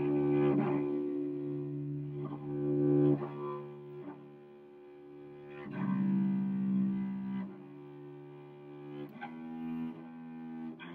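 Cello bowed on its lowest string, the C string, playing a slow reading exercise of long held notes, mostly D stopped with the first finger. Each note lasts a second or more, with a clear change of note about six seconds in and again near the end.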